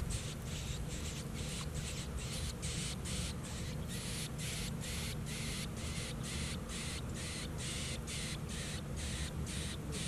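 Nestling birds giving harsh, rasping begging calls: short hissy calls repeated about three times a second in an unbroken run, over a steady low rumble.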